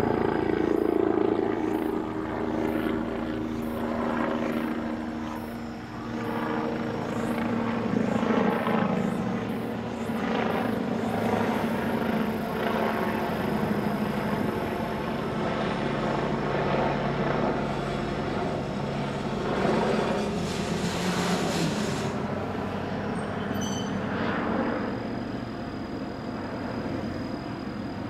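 Diesel railcar pulling into the station: its engine running and changing pitch as it comes in and stops, with the rumble of wheels on the rails.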